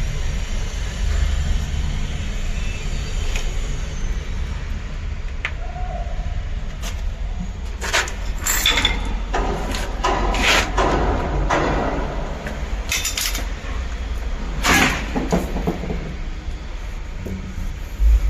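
A run of about eight short scraping strokes, bunched together in the middle, over a steady low rumble.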